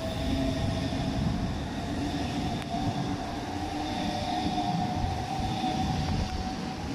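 Southeastern Highspeed Class 395 electric multiple unit pulling away along the platform: a steady electric whine from its traction equipment over the rumble of the wheels on the rails.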